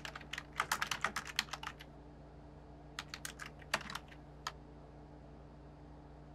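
Keys typed on a computer keyboard: a quick run of about a dozen keystrokes, a pause of about a second, then a shorter run, and one last key a moment later.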